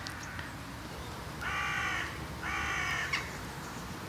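Carrion crow cawing twice, each caw just over half a second long, about a second apart.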